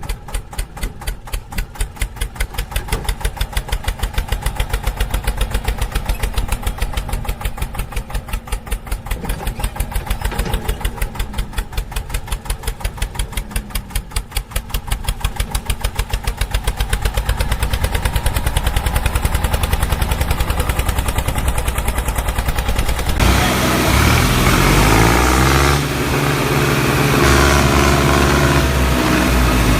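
An engine chugging with a fast, even pulse. About two-thirds of the way through it gives way to a louder, busier engine sound with shifting pitch.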